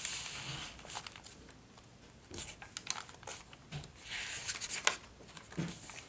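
Paper rustling and soft handling clicks as cardstock postcards and tags are shuffled and a page of a handmade paper journal is turned. The rustling comes in two spells, at the start and again about four to five seconds in.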